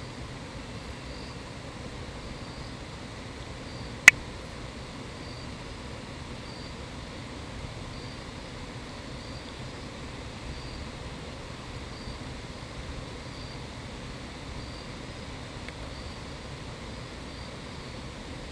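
Outdoor dusk ambience: a steady low rumble under faint, high insect chirps repeating at an even pace, roughly one a second. A single sharp click sounds about four seconds in.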